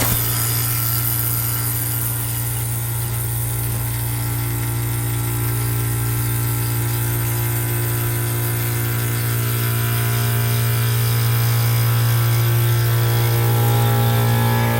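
Model 5A outdoor warning siren coasting down after being switched off, its slowing rotor giving a steady low drone with fainter higher tones above it that swell slightly near the end.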